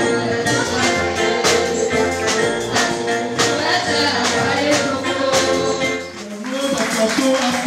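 A woman singing a gospel song into a microphone over a live church band with a steady percussion beat. The band drops out about six seconds in and a lone voice carries on.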